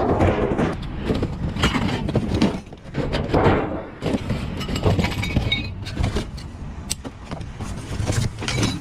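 Irregular knocking, scraping and rustling of scrap pieces being moved about in a dumpster, over a steady low rumble, with one sharp click about seven seconds in.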